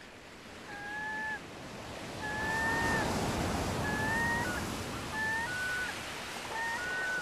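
Waves washing in a swell, with a series of short, held high notes sounding over them about every second, like the opening of a background music track.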